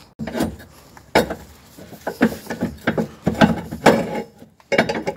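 Steel parts of a homemade removable tow hitch being handled and fitted: a series of irregular metal knocks and clanks with scraping in between.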